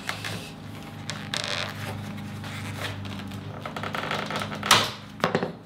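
Scraping and rustling of a strip of steamed wood being handled, with a sharp knock about four and a half seconds in, over a steady low hum.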